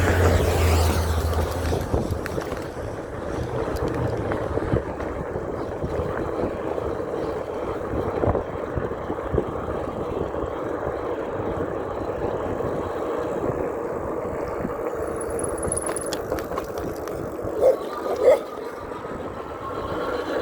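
Steady wind and tyre noise of an e-bike riding on wet pavement. Near the end, a dog barks twice, sharp and loud, as it rushes at the bike.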